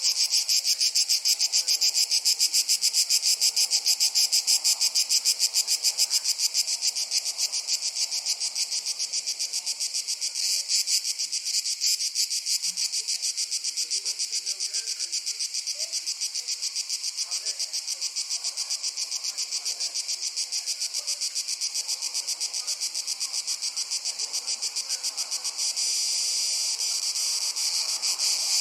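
A dense chorus of crickets chirping in a rapid, even, high-pitched pulse that never lets up. It dips slightly in the middle and grows louder again near the end.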